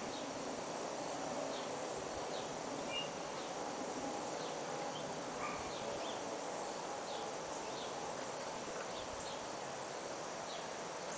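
Steady outdoor hiss of a summer field with a faint insect buzz, and scattered short, high bird chirps.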